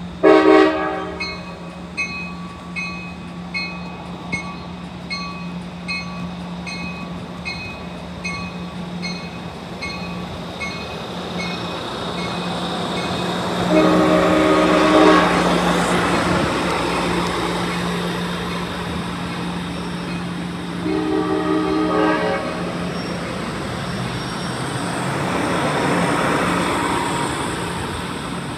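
A departing passenger train: a multi-chime air horn gives a short blast right at the start, while the locomotive bell rings steadily for the first ten seconds or so. The horn then sounds again, a blast of about two seconds around 14 seconds in, which is the loudest part, and a shorter one around 21 seconds in, over the steady hum and rumble of the train rolling past.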